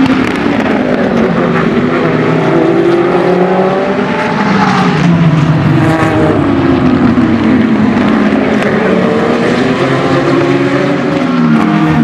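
Several sports-prototype and GT race cars passing at racing speed. Their engine notes overlap, rising under acceleration and falling away as each car goes by.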